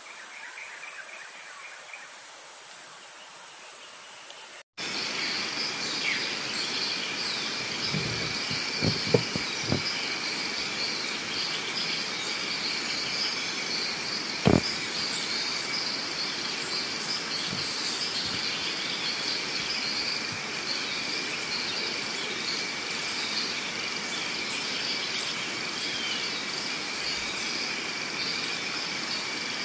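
Steady drone of insects with birds chirping high above it, stepping up sharply in loudness about five seconds in. A few soft knocks come around nine seconds and a single short thump near fifteen seconds.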